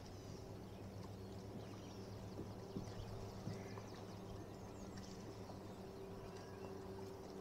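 Faint steady low hum of a bass boat's bow-mounted electric trolling motor, with a few light clicks and faint bird chirps over it.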